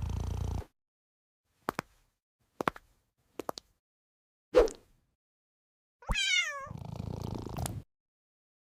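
Cat purring, which stops about half a second in, then a few short taps and a louder knock, and a single meow falling in pitch just after six seconds, followed by about a second more of purring.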